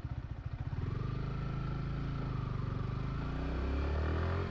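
Yamaha R15 motorcycle's single-cylinder engine ticking over with an even pulse, then pulling away about a second in, its pitch rising steadily as it gathers speed.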